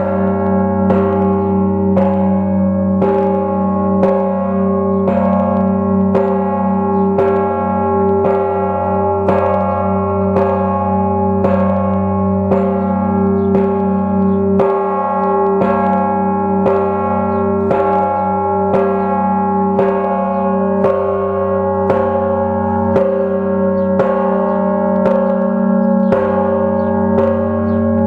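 Church bells ringing in an open frame belfry, a large bell struck over and over at a steady, even pace. Each stroke rings out over the long hum of the ones before.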